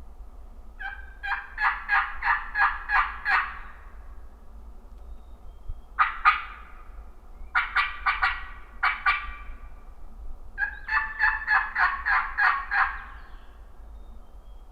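Three series of loud turkey yelps, each about seven or eight evenly paced notes, with short pauses between the series.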